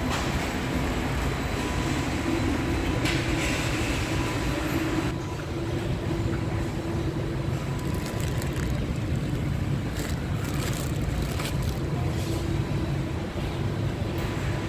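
Steady low background rumble of a large warehouse store, with a faint constant hum running under it. A few brief rustling handling noises come about two-thirds of the way through.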